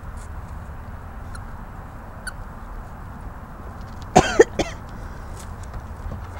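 Two short, loud cough-like vocal sounds about four seconds in, half a second apart, over a steady low background rumble.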